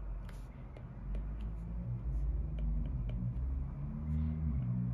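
Apple Pencil tip tapping and sliding on an iPad's glass screen while writing, as a scatter of light irregular clicks over a low hum.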